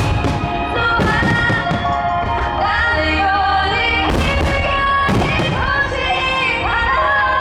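A song with a female singer, over which fireworks burst again and again as sharp thuds.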